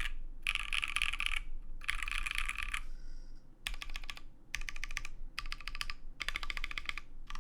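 Fast typing on a CannonKeys Bakeneko60 mechanical keyboard with lubed AEBoards Naevy tactile switches, an O-ring-mounted FR4 plate and PBT keycaps: rapid runs of keystroke clacks in bursts of about a second, broken by short pauses.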